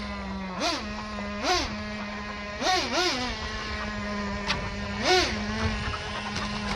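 Remote control truck's electric motor whining at a steady pitch while it drives, with chickens giving about five short rising-and-falling squawks as they are chased toward the coop.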